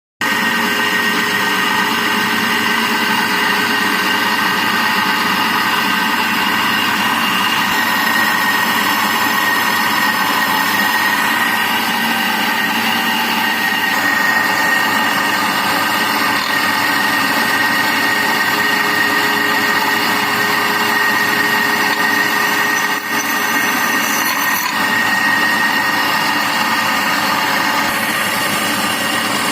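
Electric drill running continuously at steady speed, with a high motor whine and a brief dip in level about three-quarters of the way through.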